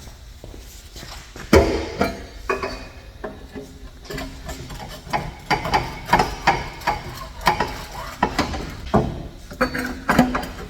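Irregular metallic clanks and knocks, as of exhaust pipes and hand tools being handled and fitted, each with a short ring; the loudest knock comes about a second and a half in, and they come more often in the second half.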